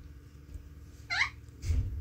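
Alexandrine parakeet giving one short chirp about a second in, its pitch climbing in a wavy sweep, followed near the end by a brief low thump.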